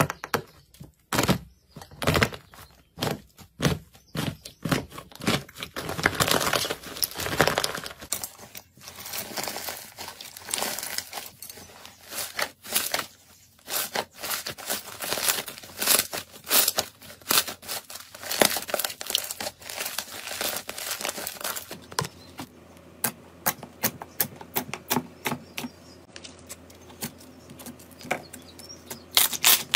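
Hand-played slime: the dried crust of a crunchy-skin slime crackling and crunching as fingers press and break it, then wet squishing and clicking as slime is kneaded and stretched. Near the end comes a run of sharp little pops as glossy slime is poked and pulled.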